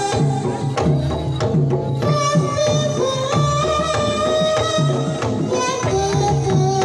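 Live Banyumasan gamelan playing a tayub piece. Kendang hand-drum strokes keep a quick, steady rhythm, the low strokes dropping in pitch, under ringing bronze metallophones and a sustained melody line.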